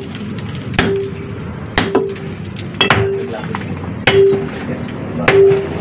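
Sledgehammer swung one-handed, striking the concrete and hollow-block face of a niche tomb to break it open: five blows about a second apart, each with a short metallic ring.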